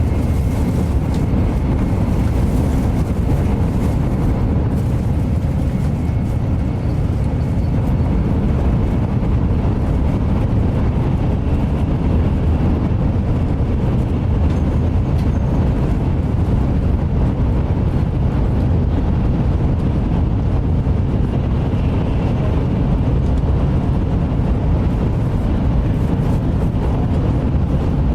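Shinkansen bullet train running at speed, heard from inside the passenger cabin: a steady, even rumble of wheels and track noise, heaviest in the low range.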